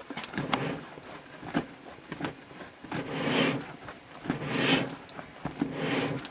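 Wood fire crackling with sharp pops, and three longer hissing surges, about three seconds in, at four and a half and near the end, as a feathered chicken is singed in the flames.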